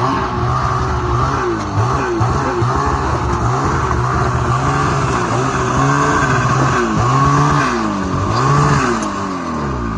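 Motor vehicle engine revving up and dropping back again and again, roughly once a second, as it works through a creek crossing.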